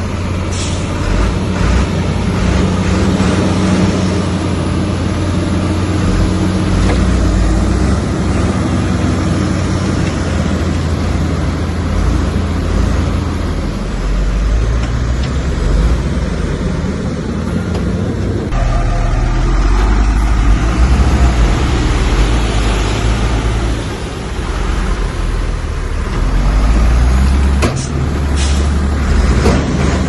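Heavy diesel engine of a bulldozer running hard under load, its engine note shifting about halfway through as the work changes. A few brief sharp sounds near the start and near the end.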